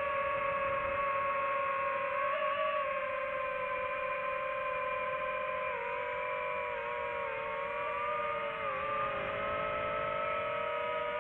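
FPV drone's motors and propellers whining steadily, several close pitches beating together. The pitch dips briefly about six seconds in and again near nine seconds, then climbs back.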